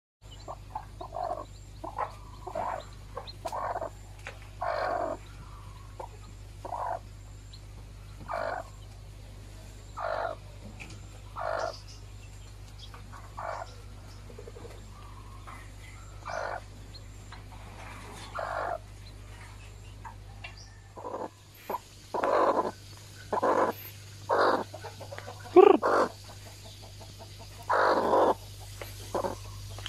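Mother hen clucking, short calls every second or two, getting louder and more frequent in the last several seconds. A steady low hum runs underneath.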